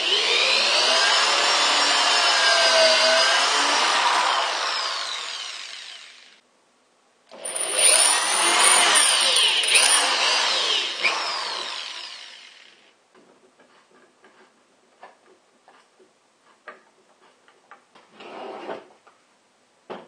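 Cordless drill boring into a wooden frame board in two long runs of about six and five seconds, its motor pitch wavering as it bites. This is followed by light knocks of wooden boards being handled on the table.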